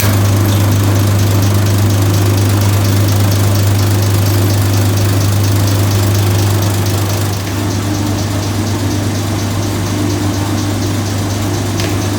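A machine running steadily with a deep, even hum that eases slightly in level about seven seconds in.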